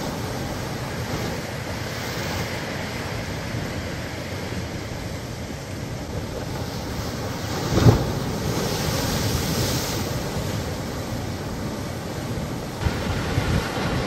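Sea waves surging and breaking against rocks and concrete tetrapod breakwater blocks, a steady wash of surf. About eight seconds in, one larger wave crashes into spray, the loudest moment, and a few smaller breaks follow near the end.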